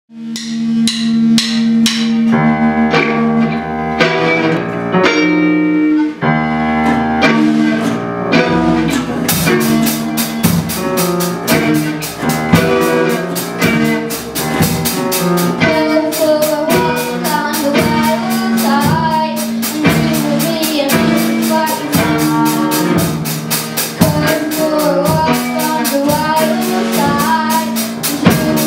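Children's rock band playing live: guitars strum the opening chords, the drum kit comes in with a steady cymbal-driven beat about nine seconds in, and a girl sings the lead vocal over it.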